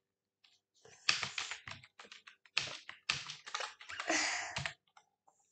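Typing on a computer keyboard: a run of irregular key clicks lasting a few seconds, starting about a second in and stopping shortly before the end.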